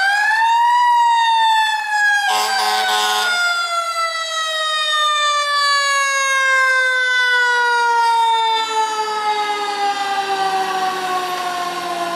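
Federal Q mechanical siren on a 2021 KME Predator fire engine spins up over the first second, then coasts down in one long, slowly falling wail. About two seconds in, a short horn blast of about a second sounds over it.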